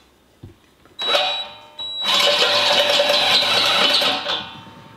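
Cordless drill with a step bit cutting into a metal harness buckle to widen its bolt hole. The motor runs in a short burst about a second in, then in a longer steady run of about two seconds.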